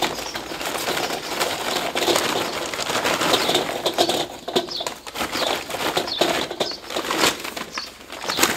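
Charcoal briquettes tumbling from a sack into a small metal kettle grill, a continuous clatter of lumps knocking on each other, on the grate and on the bowl, with the sack rustling. Birds call faintly behind it.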